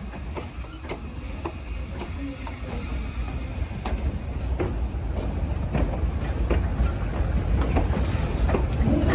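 Two coupled Soviet Er-class 0-10-0 steam locomotives rolling slowly past on the rails: a low rumble with irregular clanks and knocks from the wheels and running gear, growing louder as the second engine draws near.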